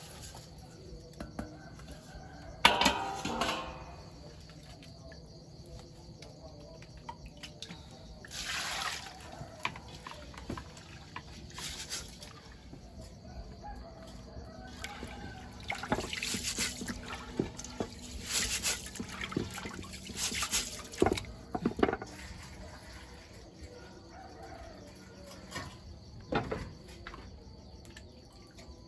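Water splashing and dripping in irregular short bursts, with small clicks and knocks between them.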